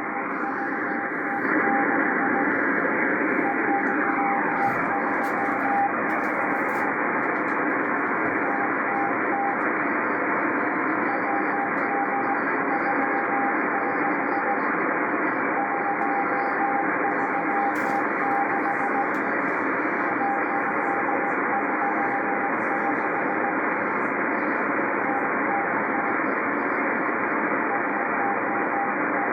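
Morse code from the M12 Russian spy number station received on an Icom IC-R8500 shortwave receiver: a single tone keyed on and off in dots and dashes over a steady bed of shortwave static hiss. A faint whistle glides downward in pitch a few seconds in.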